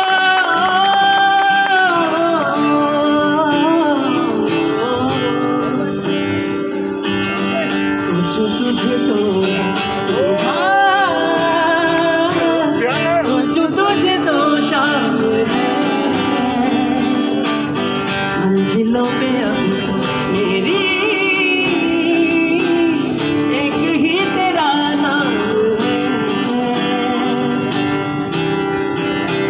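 A man singing a slow, melodic song into a microphone, accompanied by an acoustic guitar.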